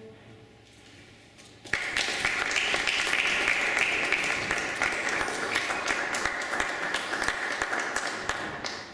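Audience applause breaks out suddenly about two seconds in, as dense, steady clapping, and starts to fade near the end.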